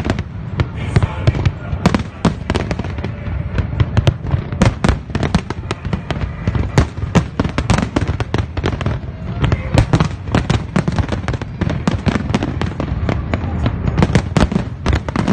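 Aerial fireworks display bursting overhead: a dense, irregular run of sharp bangs, several a second, without a let-up.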